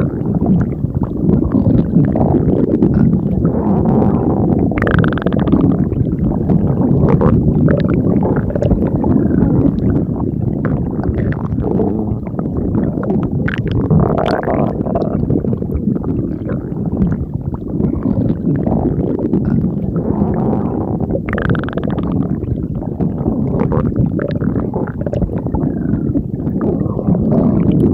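Stomach growling and gurgling: a continuous low rumble, with brief higher squeaky gurgles about five seconds in and again around twenty-one seconds.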